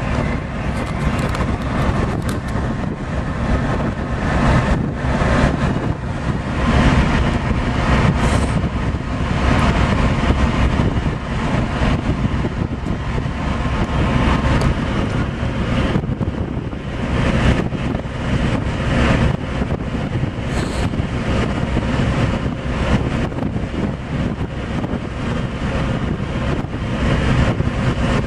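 Steady, loud rumble and rush aboard a moving ship: engine noise and the churning wake, with wind gusting irregularly on the microphone.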